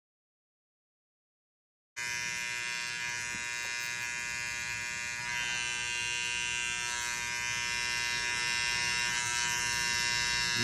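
Silence for about two seconds, then a steady electric buzz from a small motor that grows slightly louder.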